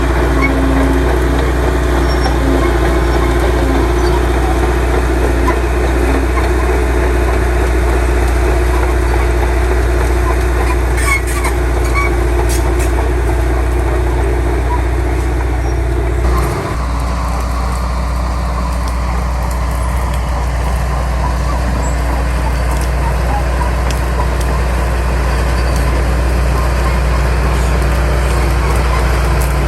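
Heavy diesel earthmoving machinery running steadily with a deep engine hum. The sound changes abruptly about sixteen seconds in.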